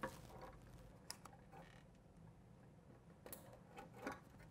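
Near silence with a few faint clicks and light knocks from the handling of a motorcycle license-plate bracket and turn-signal assembly and the plugging together of its wiring connectors. The clearest click comes near the end.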